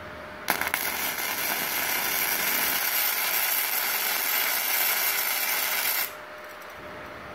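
MIG welding arc from a MultiPro 160 inverter welder used without shielding gas on aluminium plate, the current turned down because the plate had got too hot. The arc strikes with a few sharp cracks about half a second in, runs as a steady loud hiss, and cuts off suddenly about six seconds in.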